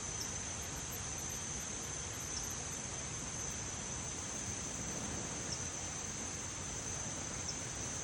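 An insect calling steadily at one high pitch, with a few brief dips, over a steady background hiss.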